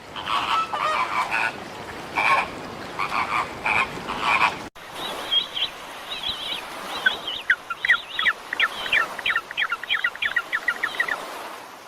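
Animal calls in two segments joined by a cut about five seconds in. The first is clusters of short, repeated calls; the second is a fast run of short, sharp calls that stops near the end.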